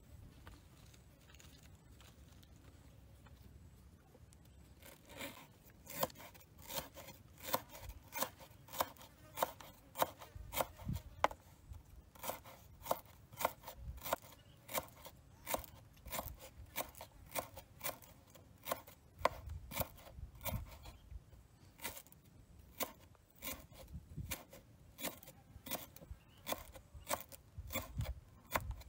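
Kitchen knife chopping garlic on a wooden chopping board: a steady run of sharp knocks of the blade on the wood, about two a second, starting about five seconds in.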